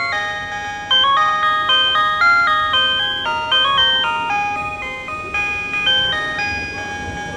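PATLITE electronic sound annunciator playing the Tobu Railway signal-clear tone: a looping electronic tune of clean beeping notes that step quickly up and down, starting over near the end. It tells the one-man train's crew that the starting signal has cleared, and it sounds for as long as the signal stays clear.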